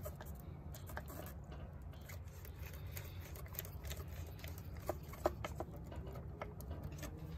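Light clicks and scrapes of hands working at a motorcycle battery's terminals and cables, two sharper clicks about five seconds in, over a low steady hum.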